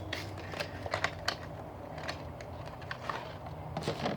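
Plastic packaging crinkling and clicking as a figure booster pack is handled and opened, in a string of short, irregular crackles over a low steady hum.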